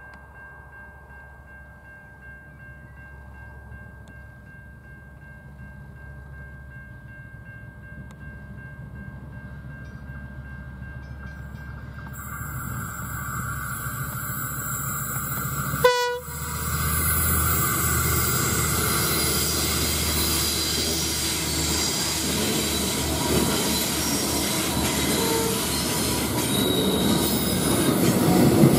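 SCT freight train, hauled by a diesel locomotive, approaching and passing close by, its sound building steadily. About halfway through the locomotive gives one short horn blast. After that comes loud continuous rolling noise from the passing vans.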